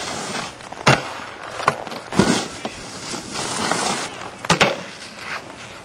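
Snowboard hitting and sliding across a terrain-park box or rail: several sharp knocks, with a scraping hiss between them and a close pair of knocks near the end.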